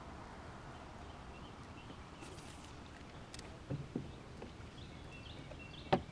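Calm open-water ambience from a kayak: a low, steady hiss, with a few soft knocks about four seconds in and one sharp click near the end.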